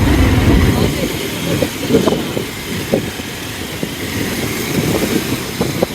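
Motor vehicle engine and road-traffic noise, a rumble loudest in the first second that then fades.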